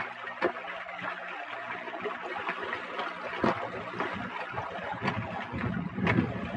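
Footsteps on a rocky trail, a handful of sharp steps or taps, over the steady trickle of a small runoff stream from a mountain lake.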